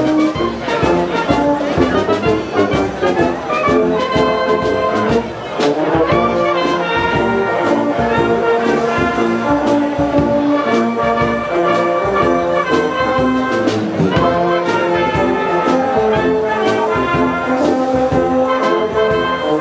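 A wind band of trumpets, clarinets, trombones and tubas playing a piece together, with held brass chords over a steady beat.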